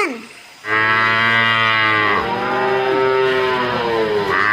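Water buffalo lowing: a long, drawn-out moo starting under a second in, its pitch dipping twice as the call runs on.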